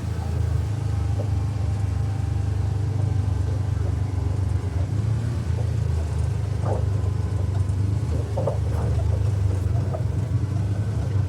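UTV engine running steadily with a low rumble as it drives an off-road trail, heard from inside the vehicle.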